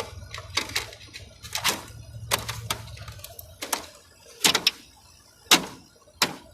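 Repeated sharp clacks and knocks, about a dozen spread through, from handling the all-plastic case of a window air conditioner. A low hum runs under the first half and fades out about three seconds in.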